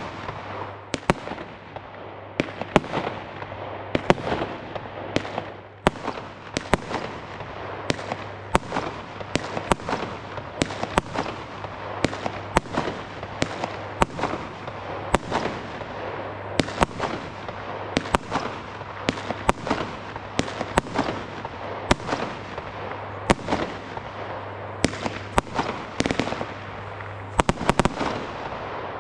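WECO Samurai firework battery firing a rapid sequence of shots, about one to two sharp bangs a second, over continuous noise from the bursts.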